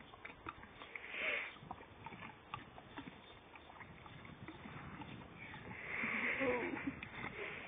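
Short clicks and crunches of a pony biting and chewing a frozen apple-and-carrot ice lolly. Two breathy rushes of sound cut across it, a short one about a second in and a louder, longer one near the end.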